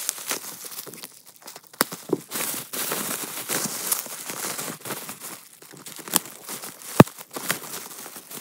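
Bubble wrap being unwrapped by hand: plastic crinkling and rustling with scattered sharp clicks, the loudest a single sharp snap about seven seconds in.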